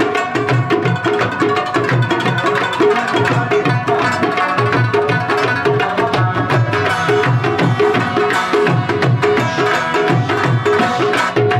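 Live instrumental folk music: tabla drumming a steady, repeating rhythm under a plucked rubab and a harmonium, with no singing.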